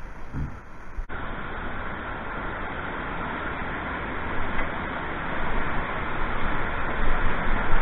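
Rushing, churning white water of a river weir, a steady roar of falling and boiling water heard from a kayak in the foam below it. It is quieter for about the first second, then steps up abruptly and grows slightly louder towards the end.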